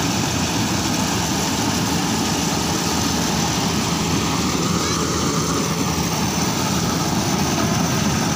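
Yanmar rice combine harvester's diesel engine and threshing machinery running steadily while it unloads threshed paddy from its spout into sacks.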